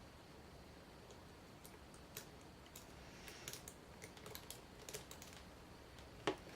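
Faint, irregular small clicks and scrapes of a lock pick working the spool pins inside an ACE 2-inch rekeyable padlock under light tension, with one sharper click near the end.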